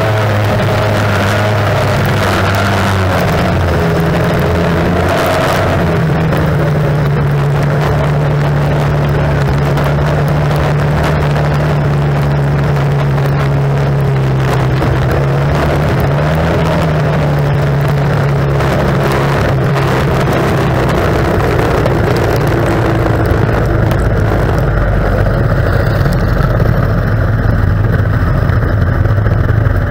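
Outboard engine of a tunnel-hull race boat running hard at racing speed, with wind and water rushing past. Its pitch steps up about six seconds in, holds steady, then falls back about twenty seconds in.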